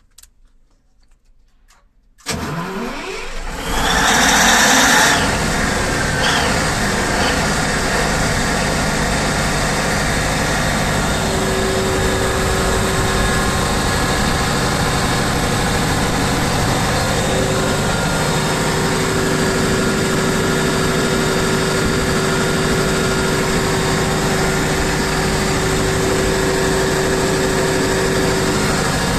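Large diesel generator set starting: after about two seconds of quiet the starter cranks and the engine fires, comes up to speed with a brief loud surge, then settles into a steady, even run at governed speed. A steady whine joins the engine note about eleven seconds in.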